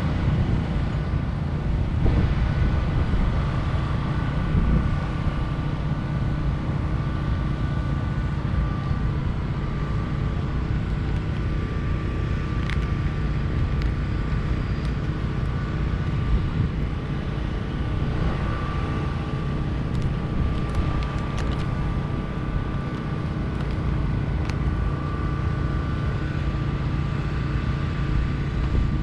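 A motor vehicle's engine running steadily, a continuous low drone with a faint steady whine above it.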